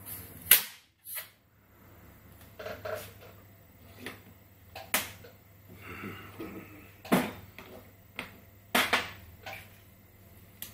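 Sharp hammer knocks and metal taps on a clamped Nissan Sumitomo rear brake caliper, about eight at irregular intervals, the loudest near the start, with a short hiss about six seconds in. They come from working loose a caliper piston that is stuck in its bore, later found to be galled.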